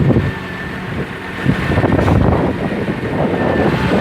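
A vehicle engine running steadily with a low rumble, and wind on the microphone.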